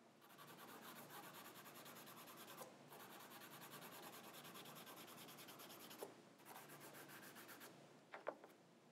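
Faint Conte crayon rubbed quickly back and forth over drawing paper, fast scratchy strokes several a second. It comes in three stretches with short breaks about two and a half and six seconds in.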